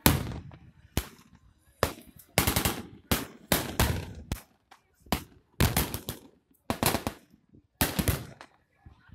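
Blank gunfire and pyrotechnic blasts: irregular single shots mixed with short rapid runs of shots like a machine gun firing. The loudest bang comes right at the start.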